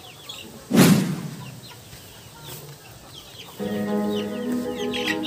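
Hens clucking softly as they feed, in many short calls. A sudden loud hit comes about a second in, and background music with sustained notes enters past the halfway point.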